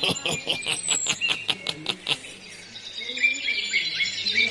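Birds chirping and calling, with short repeated chirps and high whistles. In the first two seconds there is also a fast run of clicks or rattles, about seven a second.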